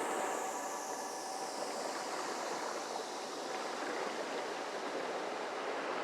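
Ambient synthesizer texture: a steady wash of filtered noise, like surf or rushing water, with a slow falling sweep in the highs early on and faint held tones underneath.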